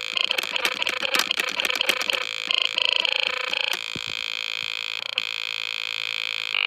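Malfunctioning keyboard giving out harsh, glitchy electronic sound. A high beeping tone switches on and off amid rapid crackling clicks for the first couple of seconds, then settles into a steadier high tone with a faint hum. The sounds are the sign of the keyboard failing.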